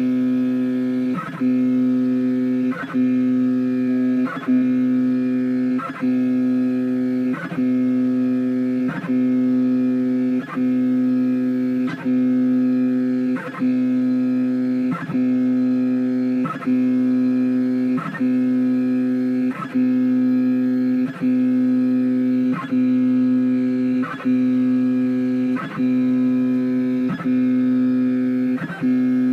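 Background music: a sustained chord held steady throughout, with a short regular beat about every one and a half seconds.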